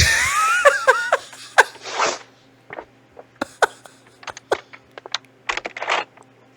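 A loud fart picked up by a doorbell camera's microphone: a sudden blast with a sputtering, wavering-pitched tail lasting about a second, followed by scattered short pops and clicks.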